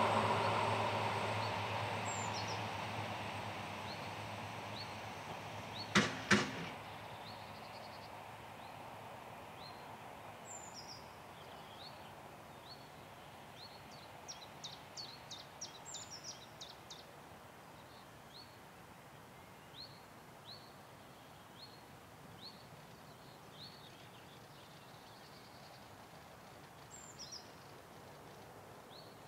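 A passing train's running noise fading away as it recedes along the line. About six seconds in come two sharp knocks in quick succession, then small birds chirping over quiet countryside.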